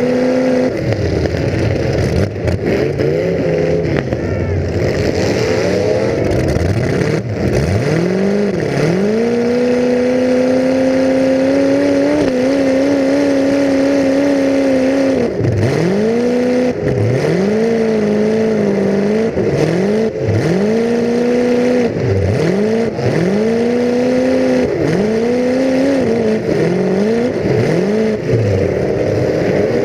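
Full-size demolition derby car's engine heard from on board, revving hard. It holds a high, steady pitch for several seconds in the middle, then drops and climbs again in quick repeated throttle bursts about every second and a half.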